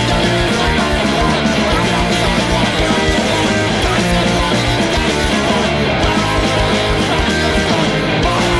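Loud punk rock music: a band playing with electric guitar and a steady drumbeat.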